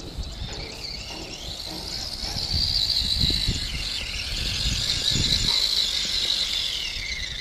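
Electric RC car's motor and gears whining as it drives up close across grass, loudest in the middle, the pitch sliding down near the end as the car slows to a stop.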